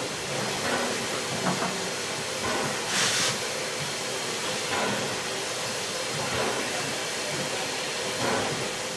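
Steam locomotive standing in steam, with a steady hiss of escaping steam. A louder, sharp hiss comes about three seconds in, among a few shorter puffs.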